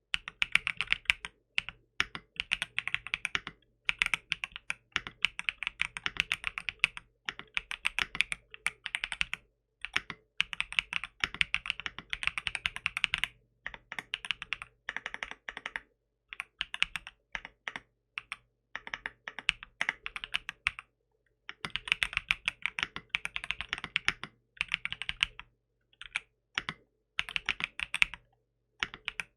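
Typing on a 75% aluminium-cased mechanical keyboard: fast runs of loud, clacky keystrokes broken by short pauses.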